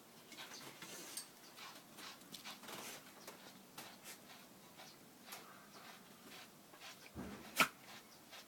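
A Shiba Inu making a run of small, irregular clicks and taps as it moves about, with one sharper click near the end.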